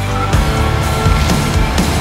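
Background music with a steady beat: drum hits under held instrumental tones.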